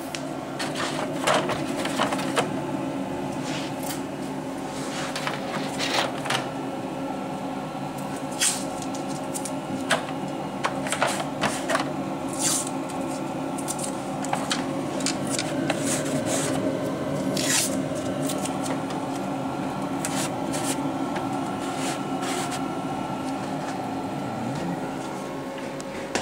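Knocks, clicks and scraping as a sheet of wood is handled and laid onto a laser cutter's honeycomb bed, over a steady machine hum.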